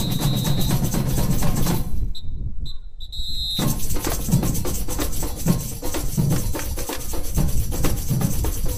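Samba bateria playing on the move: deep drum beats in a steady rhythm under the rattle of metal shakers (ganzá tube and chocalho frame). About two seconds in the sound goes muffled and thin for a second and a half, then the full band returns.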